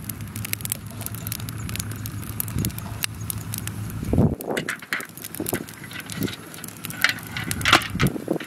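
Small wood fire crackling with many sharp ticks, while the metal handles of two mess tins clink and knock as they are hung on a wooden stick over the flames: a dull knock about four seconds in and louder clinks near the end.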